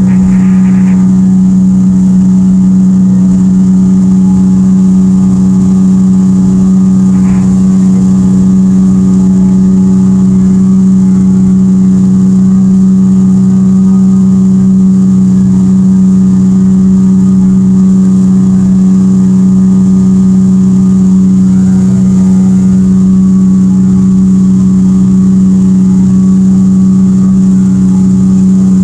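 Evinrude E-TEC 115 two-stroke outboard running steadily at cruising throttle while the boat planes, a loud, even drone that holds one pitch throughout.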